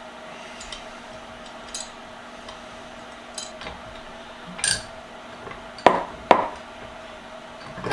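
Metal parts of a bench vise clinking and knocking as they are handled and fitted together by hand, with two sharper knocks about six seconds in.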